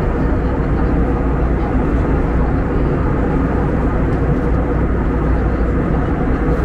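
Steady cabin noise of an Airbus A321neo in flight: a constant, even drone of engine and airflow, heaviest in the low end, with no change.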